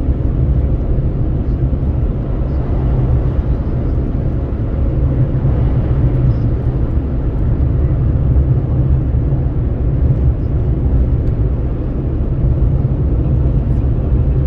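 Steady road noise from inside a vehicle travelling at highway speed: a constant low rumble of tyres and engine, with wind rushing at the window.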